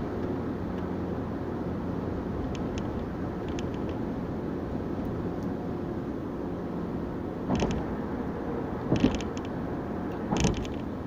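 Steady road and engine noise inside a car's cabin at highway speed, with a few short thumps in the second half.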